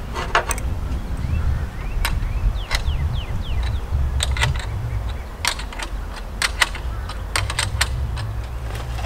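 Irregular sharp metallic clicks and clinks, about a dozen over several seconds, from handling and fastening the U-bolt clamp hardware that holds the antenna to the mast. A low rumble runs underneath.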